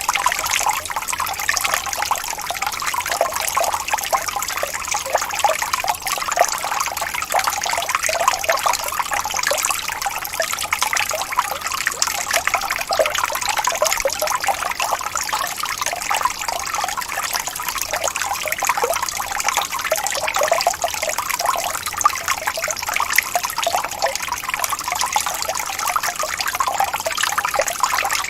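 Water running steadily over stones in a shallow stream, a continuous trickling and babbling.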